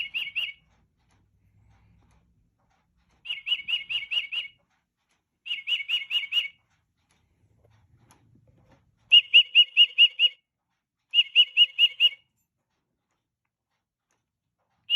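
Tufted titmouse song played from a singing bird clock's speaker: about five phrases of quick, repeated whistled notes, each phrase about a second long, separated by short pauses.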